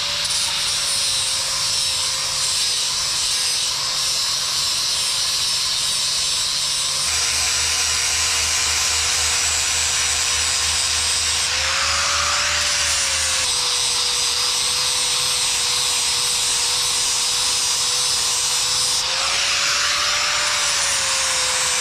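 Small angle grinder with a sanding disc running steadily, sanding scuffed paint off an excavator's rear counterweight. Its motor whine rises briefly twice, about halfway through and near the end.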